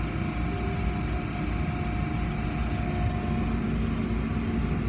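Automatic car wash running, heard from inside the car: a steady rush of water spray on the windows and body, with a faint steady hum of machinery.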